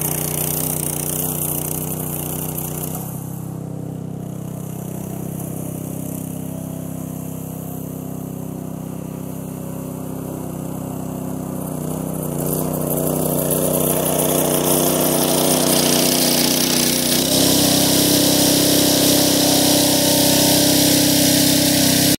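Small gasoline garden tiller engine running steadily while working the soil. It drops somewhat quieter for a stretch, then grows louder again in the second half, with a change in the engine note a few seconds before the end.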